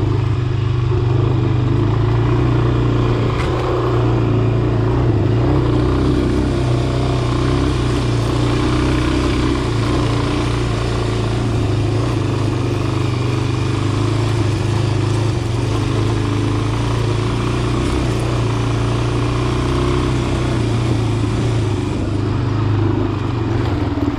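Dirt bike engine running steadily while ridden along a trail, with little change in revs.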